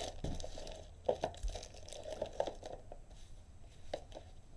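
Plastic packaging rustling and crinkling as it is handled, with a few light irregular clicks and knocks.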